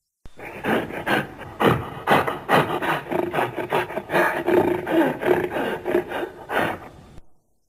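Cavewoman-style growls and grunts made by a person's voice: a run of short growling pulses, about two to three a second, lasting some seven seconds and starting and stopping abruptly.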